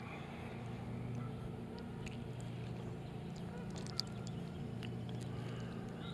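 Small handling clicks as a hook is worked out of a bluegill's mouth, with one sharp click about four seconds in, over the steady low hum of a distant motor.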